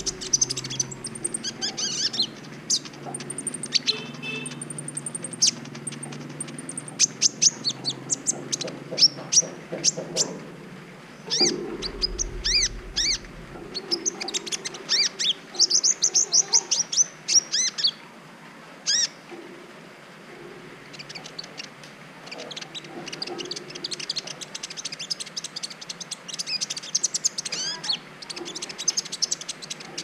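Kolibri ninja sunbird singing in clusters of rapid, high-pitched chirps and twittering trills, with short pauses between phrases and a longer lull past the middle.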